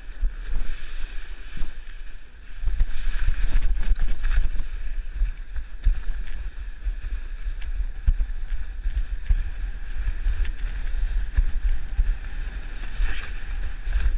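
Sled sliding fast down a packed-snow slope: a steady rushing scrape of snow under the sled with wind buffeting the sled-mounted camera's microphone, louder from about two and a half seconds in as it picks up speed, with occasional knocks over bumps.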